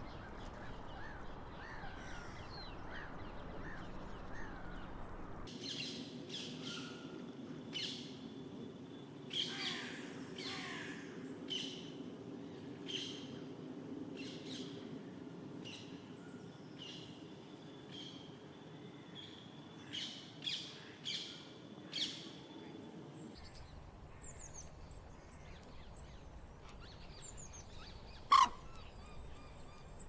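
Birds calling: a run of short chirps and calls, busiest in the middle, with one loud, sharp falling call about four-fifths of the way through.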